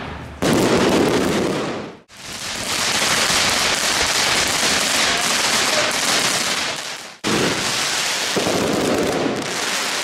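Ground fireworks hissing and crackling densely, from a fountain spraying sparks and a crackling-star effect. The sound stops and starts abruptly three times, about half a second, two seconds and seven seconds in.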